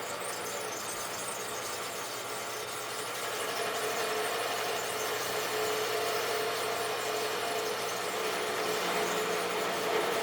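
Rockwell wood lathe running with a steady hum while a turning tool cuts the spinning wooden bat blank, a scraping hiss over the motor that grows a little louder about three and a half seconds in. The owner took the lathe's humming for a sign that something was wrong, and a bearing later froze.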